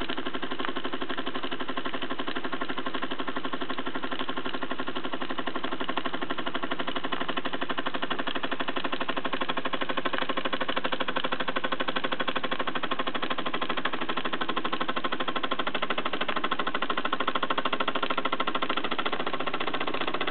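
A 1940s Burnac Vulcan toy steam engine with a vertical boiler running steadily under steam, with a fast, even beat.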